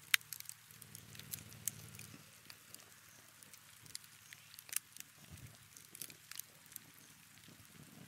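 Wood campfire crackling, with irregular sharp pops from the burning sticks; the loudest pop comes just after the start.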